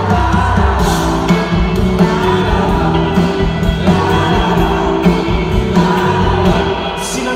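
Live band music, electric guitars and drums with singing, heard from within a festival crowd.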